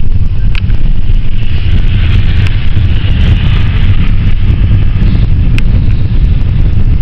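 Cabin noise inside a moving passenger van: a loud, steady low rumble of engine and road. A few short rattles or clicks come through, and a hiss swells and fades in the middle.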